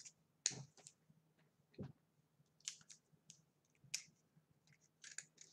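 Near silence broken by several faint, scattered clicks and taps from pens being handled and swapped, the loudest about half a second in, over a faint steady low hum.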